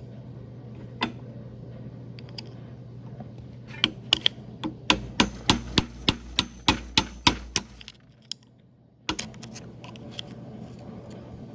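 A screwdriver tapping and prying the half-moon retaining clips off the U-joint caps on a Polaris RZR drive shaft yoke: sharp metal clicks, scattered at first, then a quick run of about three a second in the middle, over a steady low hum.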